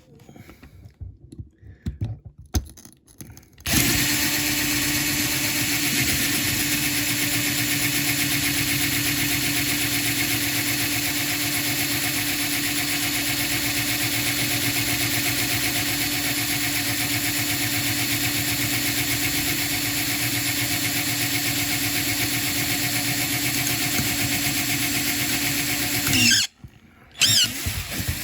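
Small electric drill running steadily, drilling out a headlight hole in a diecast metal toy van body. It starts about four seconds in after some quiet handling, stops near the end, and briefly starts again.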